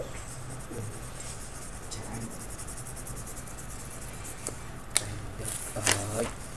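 Colouring pen scratching on paper in quick strokes as a picture is coloured in. A sharp click about five seconds in, and a brief voice near the end.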